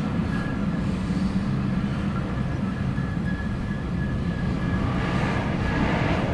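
CSX double-stack intermodal freight train rolling past: a steady rumble of wheels on rail, with a faint high tone coming and going above it, swelling a little near the end.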